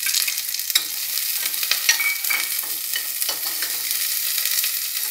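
Chopped onion sizzling in a little hot oil with mustard and cumin seeds in a stainless steel pan, with a steady hiss and scattered clicks and scrapes as a spatula stirs it against the steel.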